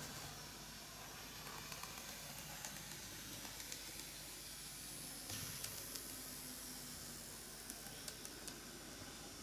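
Faint running of a KATO N-gauge EF81 300 model electric locomotive on its track: a low motor hum under a steady hiss, with scattered light ticks, most of them in the second half.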